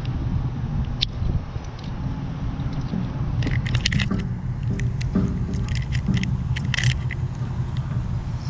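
Steel snap hook and coil tension spring clinking and jangling as they are clipped onto an air-line hanger, in several short bunches of metallic clicks, over a steady low rumble.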